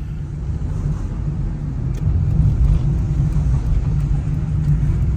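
Low, steady rumble of a small car's engine and tyres, heard from inside the cabin while it drives.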